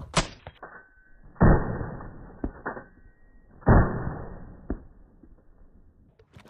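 Two shots from an Ithaca Roadblocker 10-gauge semi-automatic shotgun with its barrel cut down to 13 inches, about two seconds apart. Each is a loud blast that dies away over about a second.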